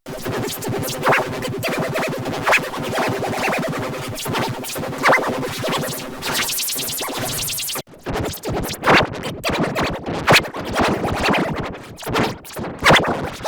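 Music heavily processed with rapid stuttering, scratch-like effects, cutting out briefly nearly eight seconds in.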